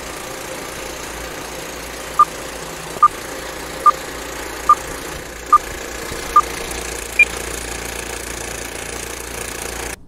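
Vintage film-leader countdown sound effect: a steady film projector whir with hiss under it, and short beeps a little more than once a second, six at one pitch and then a seventh higher. The sound cuts off abruptly just before the end.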